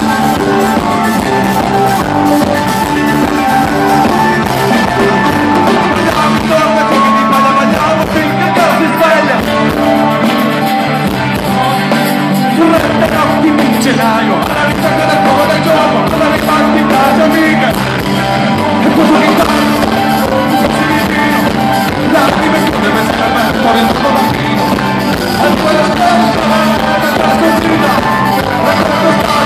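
Live folk-rock band playing on stage, with acoustic and electric guitars and a drum kit, heard from the audience.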